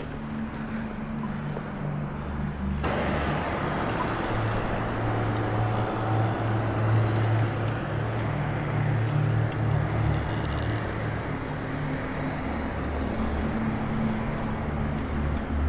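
Road traffic noise and wind on the microphone of a camera on a moving bicycle. The noise becomes suddenly louder and fuller about three seconds in.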